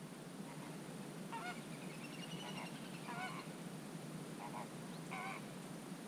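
Waterbirds calling across a lake: about five short calls a second or so apart, with a longer call rising and falling in pitch near the middle, over a steady low hiss.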